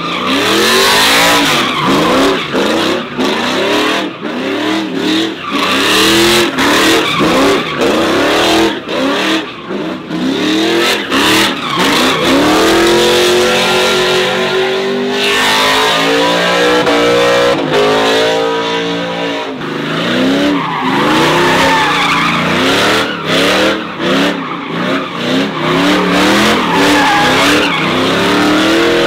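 Pickup truck doing donuts: its engine revs hard, rising and falling again and again, with a long held climb around the middle, over the continuous screech of spinning rear tyres.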